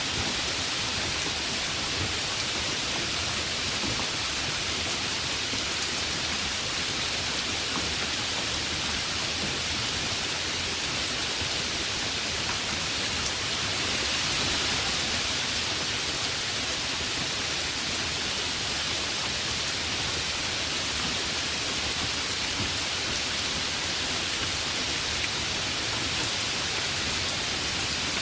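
Heavy rain falling steadily, a dense even hiss of drops with no breaks, swelling slightly about halfway through.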